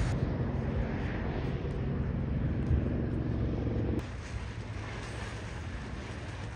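Steady low vehicle rumble with a droning hum; about four seconds in it cuts abruptly to a quieter, even noise.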